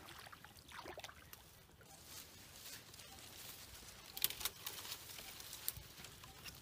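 Leaves and dry twigs of shrubs rustling as someone moves through the brush, with a few sharp light clicks and snaps, the clearest about four seconds in.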